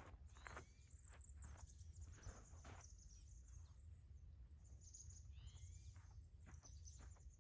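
Faint outdoor ambience: a bird chirping a few curved notes past the middle, over soft scuffing sounds and a low steady rumble.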